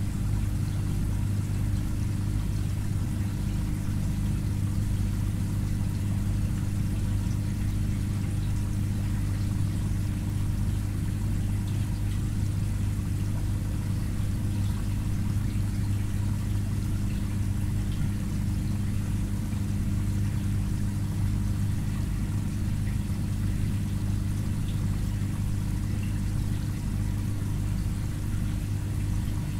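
Aquarium filter running: a steady low hum with water trickling over it.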